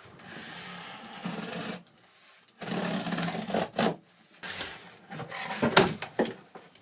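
Rough scraping and rubbing in two longer strokes, then shorter rustling scrapes, with a sharp click a little before the end.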